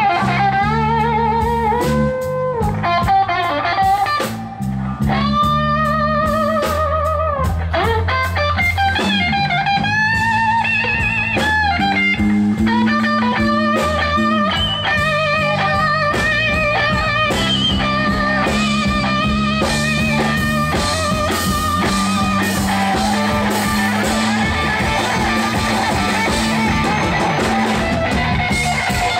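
Live blues band playing an instrumental passage: an electric guitar solo of bent, wavering notes over electric bass and drum kit. In the second half a harmonica played through a hand-held microphone joins the guitar.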